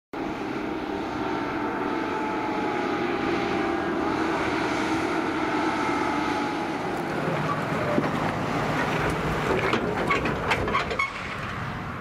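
New Holland tractor's diesel engine running steadily as it approaches and passes close by towing a grain trailer. Rattling and knocks from the trailer and running gear come as it goes past, about ten seconds in, and the engine sound drops away soon after.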